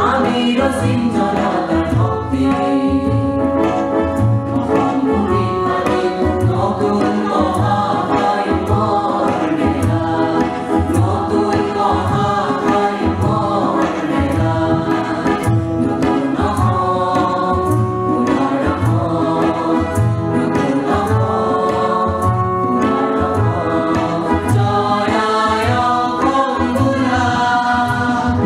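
A mixed group of men and women singing an Assamese song together in chorus through microphones, over a steady low drum beat.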